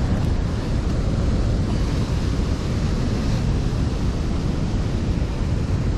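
Sea surf breaking on rocks, a steady rush with wind rumbling on the microphone.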